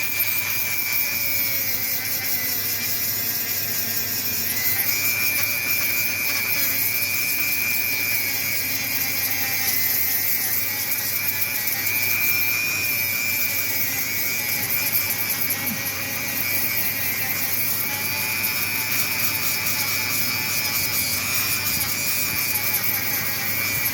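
Dremel-type rotary tool grinding down deep gouges in a car wheel: a steady high-pitched whine with a hiss of grinding, its pitch dipping slightly now and then as it bears in.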